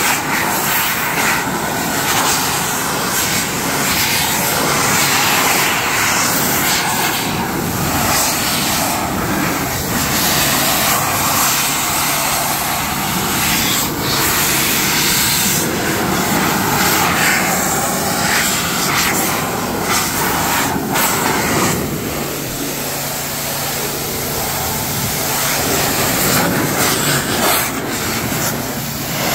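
Electric car-drying blower running steadily, a loud rush of air from its nozzle as it blasts water off the paint, grille and headlight. The air noise shifts as the nozzle moves over different surfaces, and goes somewhat quieter for several seconds late on.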